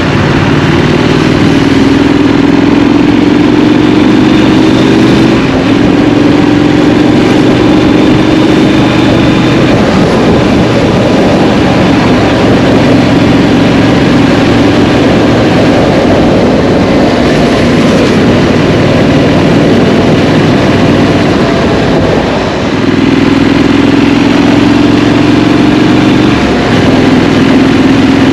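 Scrambler motorcycle engine under way, climbing in pitch as it pulls and dropping back at each gear change or throttle roll-off, several times over. A steady rush of wind and road noise runs underneath.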